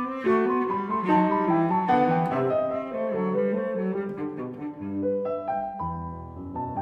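Instrumental background music: a melody of held notes over lower accompanying notes.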